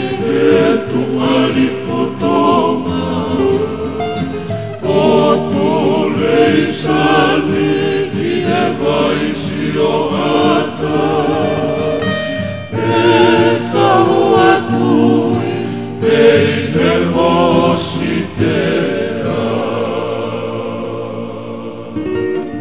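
Tongan faikava (kava-club) song: a group of voices singing together in harmony to acoustic guitar, tapering off toward the end.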